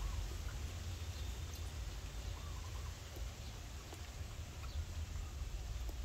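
A steady low rumble with a few faint, short wavy squeaks about two and a half seconds in, and a couple of faint ticks.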